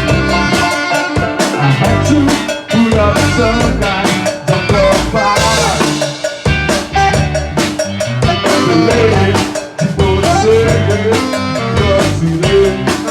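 Rock band playing an instrumental passage: a drum kit keeps a steady beat with rimshots, under pitched guitar and bass lines.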